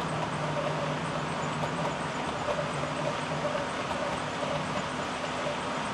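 HO scale model train coaches rolling past on the track, a steady whirring rumble of small wheels on rail.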